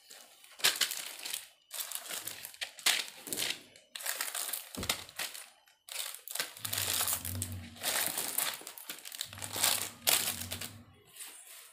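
Plastic sleeves on carded jewellery pieces crinkling in repeated bursts as the packets are handled and shuffled between boxes.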